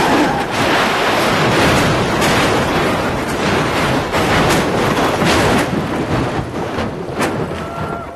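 Volkswagen van crashing and rolling over: a loud, continuous din of crashing with many sharp impacts, dying down near the end.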